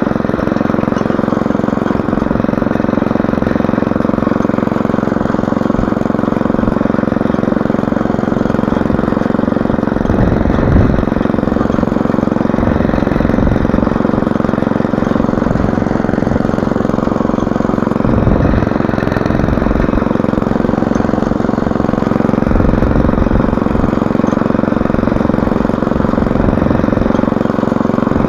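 Small air-cooled petrol engine of a walk-behind motor hoe running steadily while its rotating tines cut through the soil between crop rows. Wind rumbles on the microphone twice, about ten and eighteen seconds in.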